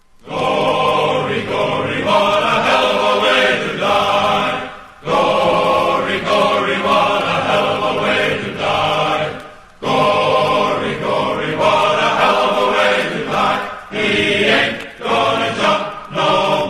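Music with a choir of voices singing or chanting in phrases a few seconds long, with short breaks between them.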